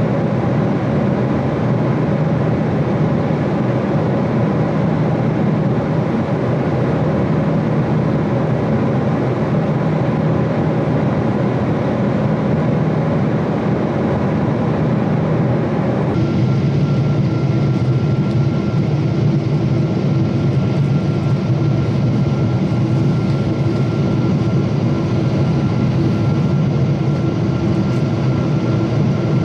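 Jet airliner cabin noise heard from a window seat beside the engine: a steady engine hum and the rush of air at cruise above the clouds. About halfway it changes abruptly to a similar rush with a steady high whine added, as the aircraft flies low over city lights.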